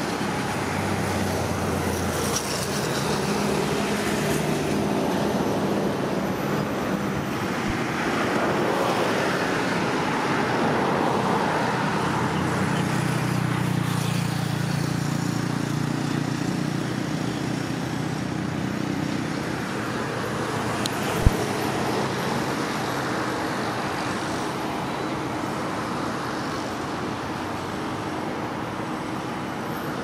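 Steady road traffic noise, passing vehicles' engines swelling and fading in a continuous hum. A single sharp click about twenty-one seconds in.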